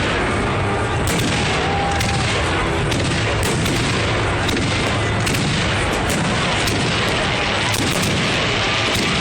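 Fireworks bursting: a dense run of bangs and booms, several a second, one after another.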